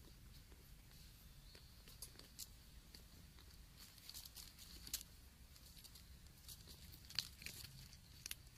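Near silence broken by faint scattered clicks and rustles, the sharpest about 5 and 7 seconds in, as a cat moves and brushes right against the camera. A faint steady high tone sits behind them.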